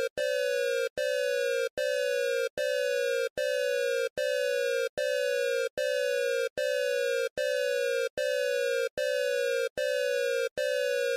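Emergency alert alarm tone: a buzzy beep that slides slightly down in pitch, repeated about every 0.8 seconds, each beep starting with a click.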